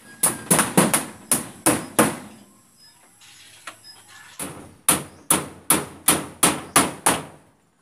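Hammer striking a wooden wall panel, nailing it up. There are two runs of steady blows, about seven and then, after a pause of a couple of seconds, about eight more, at roughly two to three blows a second.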